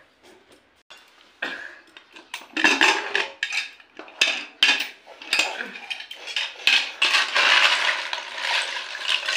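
Metal spoon stirring and scooping cooked water snails in an aluminium pressure cooker pot, the shells clinking and clattering against each other and the metal. Scattered knocks start about a second and a half in and build into a dense rattle near the end.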